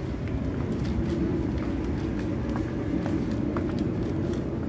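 Steady low rumble of a car ferry's machinery heard inside its passenger cabin as it comes in to dock, with a few faint ticks; the passenger thinks the engines have just been shut down.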